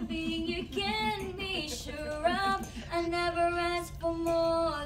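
High voices singing a tune, with several long held notes.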